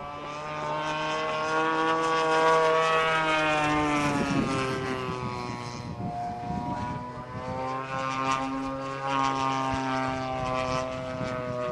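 Yak-54 aerobatic plane's nine-cylinder radial engine and propeller running at high power during an aerobatic display, the engine note bending up and down in pitch as it manoeuvres. It is loudest about two to three seconds in and shifts pitch briefly around four seconds in.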